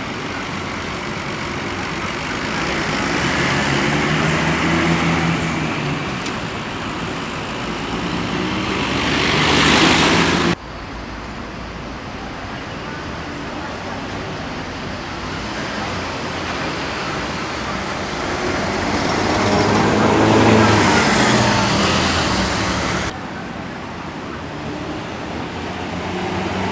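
Buses driving past one after another, engine and tyre noise swelling as each one nears. The sound builds twice and is cut off sharply each time, about ten seconds in and again near the end.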